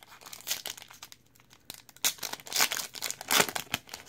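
A trading-card pack wrapper being torn open and crinkled by hand. There is a short run of crackling early on, then a longer, louder run from about halfway through.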